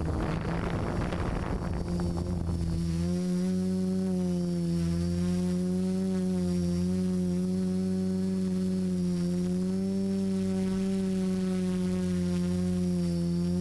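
Motors and propellers of a Xugong 10 multirotor drone in flight, heard through its onboard camera: a steady buzzing whine whose pitch wavers slightly. It is rough and noisy for the first three seconds or so, then settles into a smooth tone.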